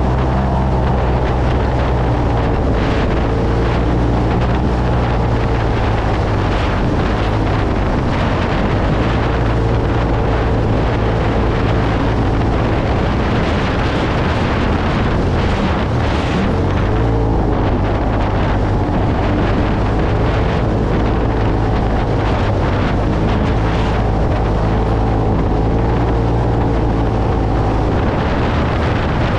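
UTV engine running steadily while driving over desert dirt, with wind buffeting the microphone; the engine note eases off briefly around the middle and then picks back up.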